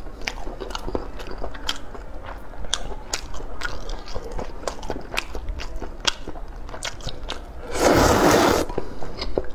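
Close-up mouth sounds of eating rice noodles: chewing with many small wet clicks and smacks. About eight seconds in, a loud slurp of noodles lasting about a second.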